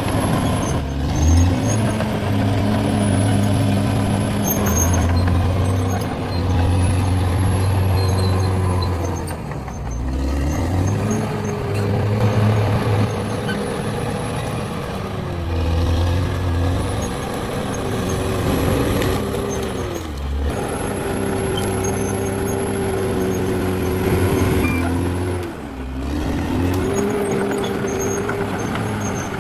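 Caterpillar D6R XL bulldozer's diesel engine working under load, its note dropping and climbing again every few seconds as the machine pushes and eases off.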